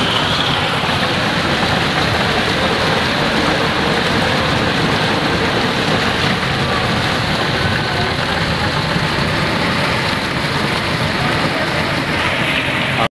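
Heavy rain and rushing floodwater over a flooded street: a steady, loud rushing hiss with no break.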